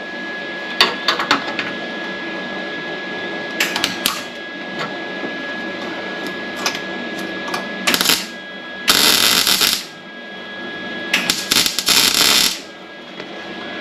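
Welder tacking a replacement sheet-steel cab corner: a series of short arc crackles, about five, the longest and loudest lasting about a second, over a steady hum.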